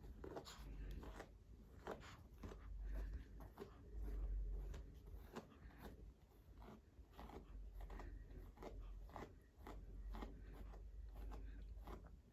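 Pet brush scratching through a dog's fur in short, irregular strokes, with light clicks and close handling bumps.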